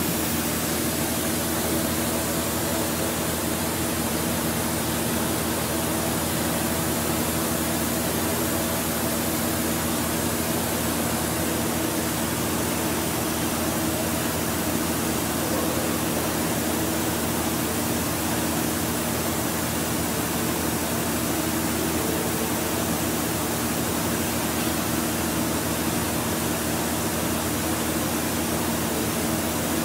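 Walter Helitronic Vision CNC tool grinder running inside its closed enclosure: a steady hiss of coolant spraying in the work area over a steady machine hum.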